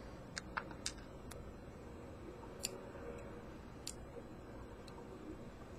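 Small metallic clicks and ticks from a tool working the pins of a pin-tumbler lock: four quick ones in the first second and a half, then a few more spaced out.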